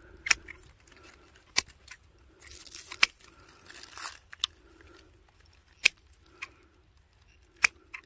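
Hand pruning shears snipping thin twigs off a young Jacquemontii birch sapling: about six sharp snips, a second or so apart, with a stretch of rustling near the middle.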